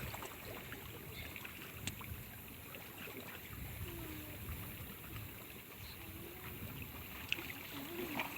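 Faint, steady outdoor noise of wind and water at the water's edge, with a few light clicks.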